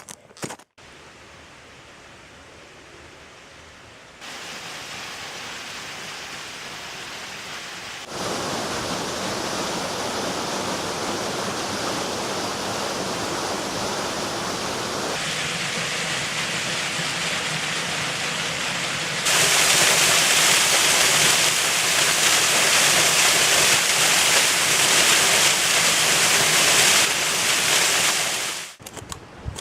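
Rushing water of a mountain stream and waterfall: a steady hiss with no pitch, heard in several abrupt cuts, each louder than the last and loudest from about two-thirds of the way in.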